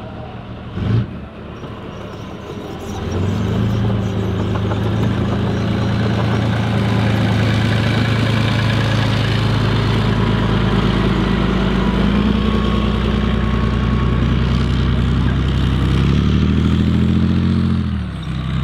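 Tracked Leopard-based armoured vehicle's diesel engine opening up as it pulls away, then running hard at a steady pitch as it drives across the grass. Near the end the engine revs higher before easing off. A short sharp knock sounds about a second in, before the engine opens up.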